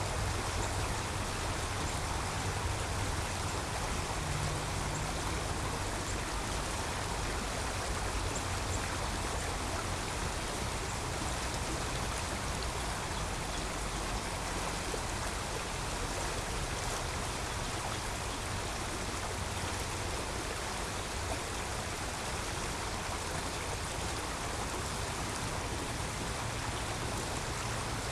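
Creek water flowing with a steady rushing hiss, with an even low rumble underneath.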